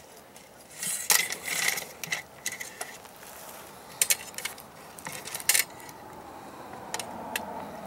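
Handling sounds: scattered sharp clicks and light metallic rattles, with a short spell of rustling about a second in.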